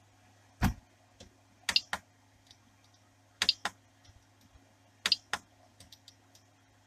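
The rotary push-button knob on a 3D printer's LCD controller is being pressed and turned to step through its menus. Four groups of sharp clicks, one to three in each, come about every one and a half seconds, with lighter detent ticks between them. A faint low hum runs underneath.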